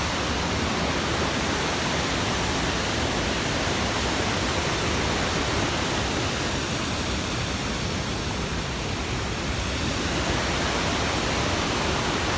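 Waterfall up close: a loud, steady rush of falling water that cuts off suddenly at the end.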